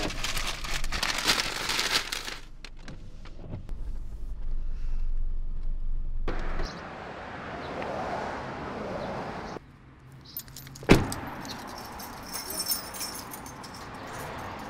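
Steady hiss of rain around a car, broken by light clicks and jingling, with one loud sharp knock about eleven seconds in.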